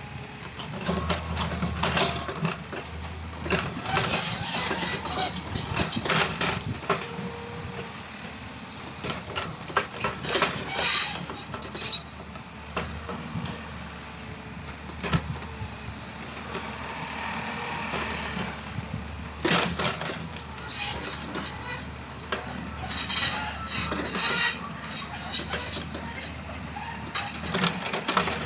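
Excavator working: its diesel engine runs steadily under load, with repeated clanks and scrapes from the bucket and arm, some in loud clusters.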